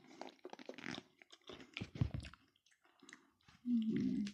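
A person chewing jalapeño peppers with the mouth closed: soft, irregular wet clicks and crunches. Near the end there is a short voiced murmur.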